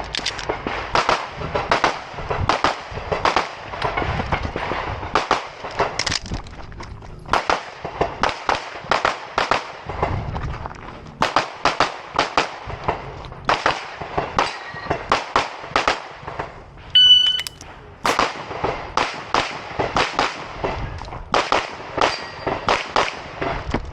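Open-division competition pistol fired in fast strings of shots, often several a second, with short pauses between strings. A short electronic shot-timer beep sounds about 17 seconds in, and firing resumes about a second later.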